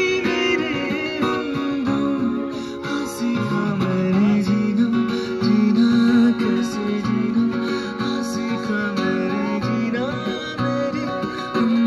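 A man singing into a microphone while strumming an acoustic guitar.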